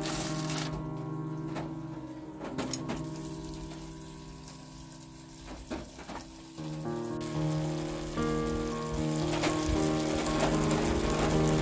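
Udon and sukiyaki broth sizzling and simmering in a skillet, heard at the start and again from about seven seconds in, with a few light clicks, over soft background music.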